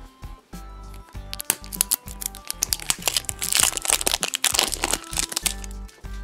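Plastic wrapper crinkling and crackling as it is peeled off a plastic surprise egg, thickest in the middle seconds, over background music.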